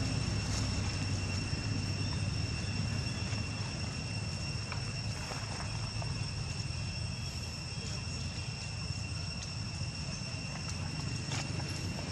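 Steady high-pitched drone of insects, one unbroken tone with a higher overtone, over a low rumble, with a few faint crackles of dry leaves underfoot.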